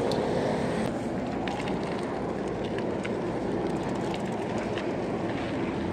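Steady rumbling noise of a bicycle rolling over a rough dirt path, with scattered faint rattles and clicks.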